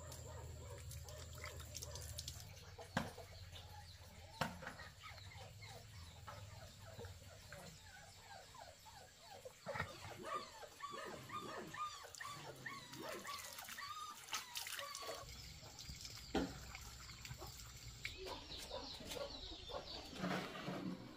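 Domestic animals calling: a quick run of short, repeated calls in the middle, amid a few sharp knocks and clicks.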